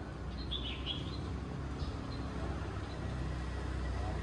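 Street ambience: a steady low engine hum from traffic that grows louder near the end, with a few short high bird chirps about half a second in.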